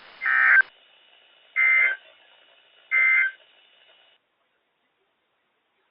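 Three short bursts of EAS/SAME digital data from NOAA Weather Radio station WXL51, the end-of-message code that marks the close of the warning. Each burst is a buzzy warble about a third of a second long, spaced about 1.4 seconds apart. Faint radio hiss lies between them and cuts off about four seconds in.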